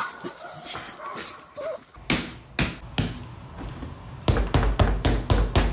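Faint dog whimpering, then from about two seconds in a run of loud, sharp slaps or thuds, scattered at first and then coming about five a second from about four seconds in.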